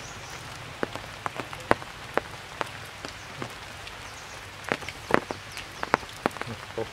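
Rain falling on tree leaves: a steady hiss with many separate close drops tapping irregularly, most thickly about five seconds in.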